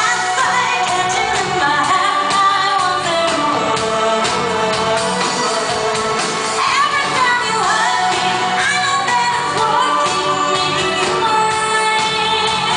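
Live synth-pop performance: a woman's lead vocal sung into a microphone over keyboards, guitar and drums, loud and steady throughout.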